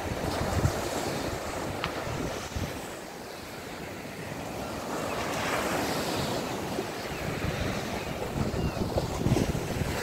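Small sea waves breaking and washing up a sandy beach, with wind gusting on the microphone. The surf swells louder about halfway through.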